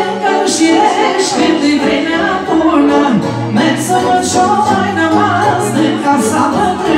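A Romanian Banat folk song sung into a microphone and amplified through the hall's loudspeakers, with musical accompaniment.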